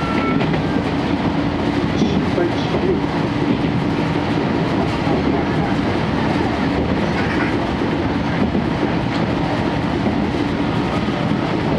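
Inside a moving 12-series passenger coach: steady rumble of steel wheels on the rails with a steady hum running under it, which in this SuHaFu 12 car includes its underfloor diesel generator engine.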